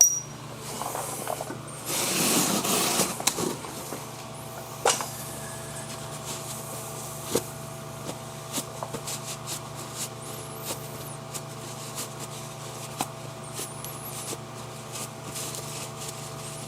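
Hands working on brake parts and tools: a sharp click, a scraping rustle lasting about a second and a half, then scattered light clicks and knocks of metal, over a steady low hum.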